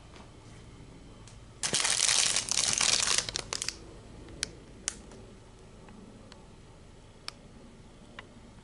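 Plastic food packaging crinkling loudly for about two seconds as it is handled, followed by a few short, sharp ticks.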